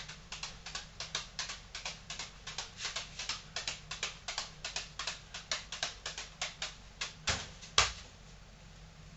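Beanbag juggling balls smacking into the hands at each catch, a quick regular patter of about four a second. Near the end come two louder thuds as a beanbag, thrown behind instead of placed on the forehead, lands among the clutter.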